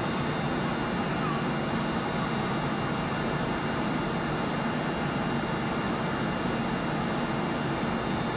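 Cessna 208 Caravan's PT6A turboprop engine and propeller running steadily, heard inside the cockpit: a dense even rushing drone with thin, steady whining tones high above it, as the plane rolls out on the runway.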